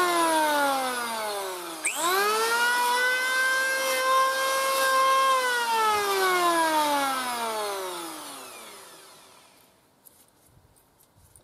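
Electric hand planer motor whining as it winds down, switched back on about two seconds in and spinning up sharply, running steadily for a few seconds, then released and winding down to a stop. A few faint clicks near the end.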